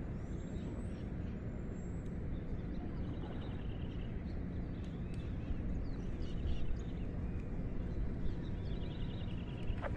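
Outdoor pond-side ambience: a steady low rumble with birds chirping in short, fast trills several times.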